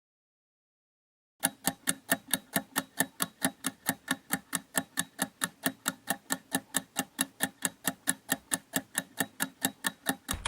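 Clock-style ticking sound effect, the kind used as a quiz countdown timer: sharp, even ticks about four a second, starting about a second and a half in after a silent gap.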